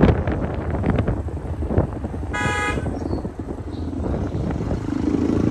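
Motorcycle riding along a road with a steady low rumble of engine and wind, and a vehicle horn honking once, briefly, about halfway through.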